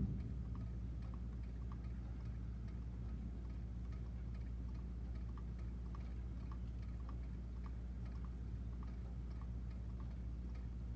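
The tail of a thunder rumble dies away right at the start. Then there is a steady low hum with faint, irregular ticking, two or three ticks a second.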